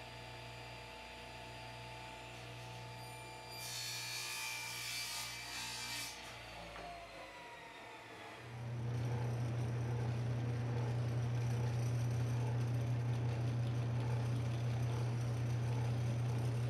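Drill press running steadily from about halfway in, its bit going through a clear plastic plate into plywood. Earlier, about four seconds in, a brief high hiss lasts a couple of seconds.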